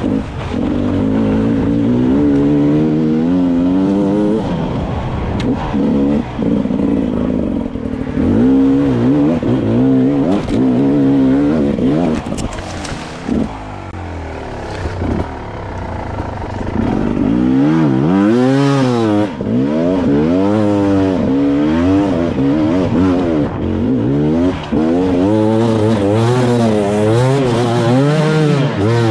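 Beta 300 two-stroke enduro motorcycle engine under load on a trail, revving up and down over and over as the throttle is worked, with a quieter, lower-revving stretch near the middle.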